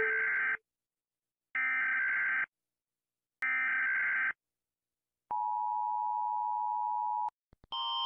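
US Emergency Alert System broadcast tones: three bursts of the screeching SAME digital header, each about a second long with a second's gap between, then the steady two-tone attention signal for about two seconds, which cuts off abruptly.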